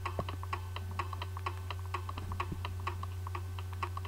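Rapid, fairly even clicking, about six clicks a second, over a steady low hum.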